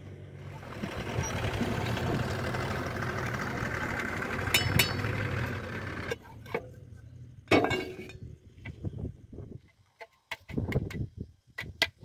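JCB 3DX backhoe loader's diesel engine running steadily for about five seconds, then cutting off sharply. After that come scattered clicks and knocks of the plastic air pre-cleaner cap being handled and pulled off.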